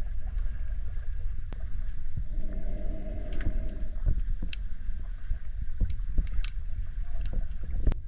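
Sound picked up by a camera underwater: a steady, muffled low rumble with scattered sharp clicks and pops.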